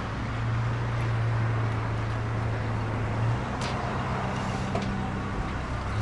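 A vehicle engine idling with a steady low hum, which shifts down a little about halfway through. There is a single sharp click shortly after.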